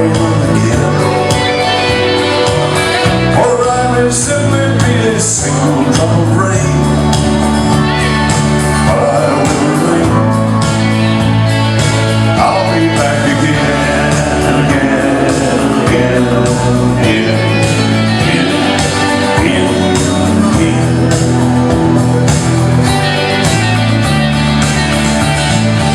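Country music from a band, with a steady walking bass line and a male voice singing at times.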